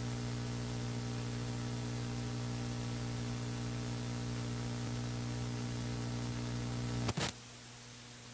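Electrical mains hum with hiss in the broadcast audio line, steady, then cut off by a sharp click about seven seconds in, leaving a fainter hiss: an unplugged or switched microphone or mixer channel.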